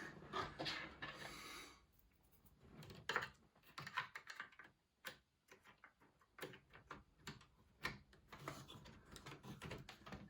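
Faint, scattered plastic clicks and taps as DDR2 RAM sticks are pushed into the desktop's memory slots and the slot latches snap shut.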